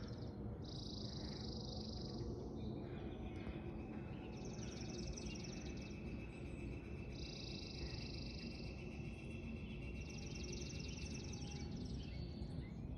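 Songbirds singing in the background, with high phrases about a second and a half long every few seconds. Trilled phrases alternate with buzzier ones, over a steady low background noise.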